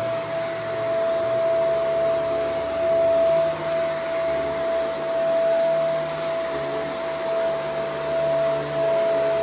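Shark Vertex AZ2002 Powered Lift-Away upright vacuum running on carpet: a steady whine over the rush of suction, its level rising and falling every second or so as it is pushed back and forth.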